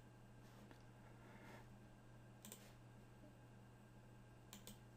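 Near silence with room hum, broken by a few faint clicks of a computer mouse or keyboard being operated: one about halfway through and a couple near the end.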